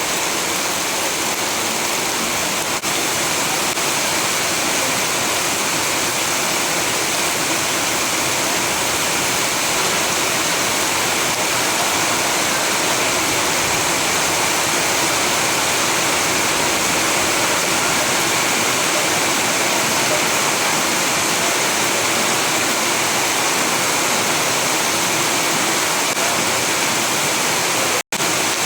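Steady rainfall, an even, unbroken hiss of rain. It cuts out for an instant near the end.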